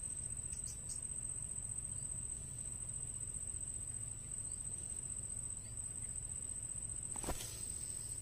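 Insects droning a single steady high-pitched note over a low outdoor rumble, with one brief knock about seven seconds in.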